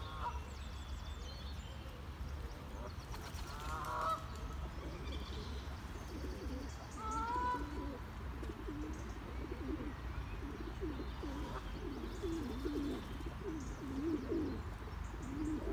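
Canada geese honking a few times, with feral pigeons cooing over and over from about six seconds in and small birds chirping faintly.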